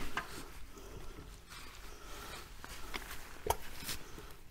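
Scattered light clicks and knocks from manoeuvring a car's front subframe on a jack, with one sharper knock about three and a half seconds in.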